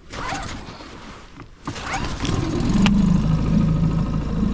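Tohatsu 20 hp outboard motor starting a little under two seconds in, then running steadily.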